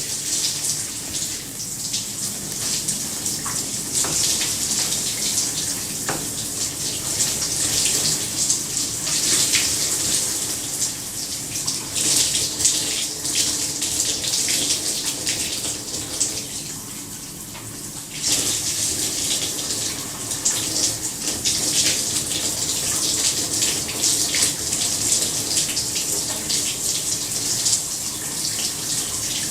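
Shower running: a steady spray of water hissing onto a tiled floor and tub. Just past the middle it briefly goes softer and duller for a second or two, then comes back.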